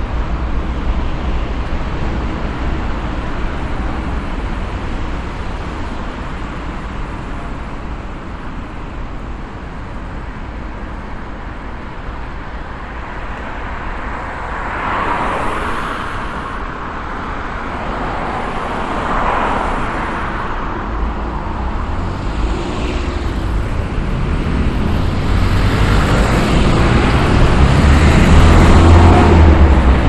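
Road traffic: a steady hum of vehicles with several cars passing one after another, each swelling up and fading away. A deeper rumble builds near the end as a heavier vehicle goes by.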